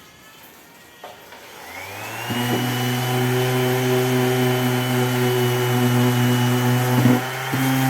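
Electric power tool motor starting up with a rising whine, then running steadily at full speed, with a brief dip in sound shortly before the end.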